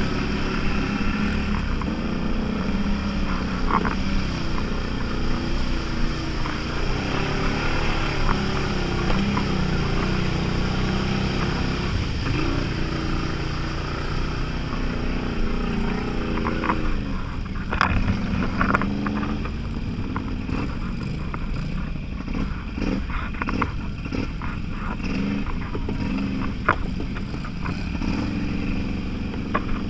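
An off-road vehicle's engine runs under changing throttle, its pitch rising and falling as it is driven. A short cluster of knocks and rattles comes a little past the middle.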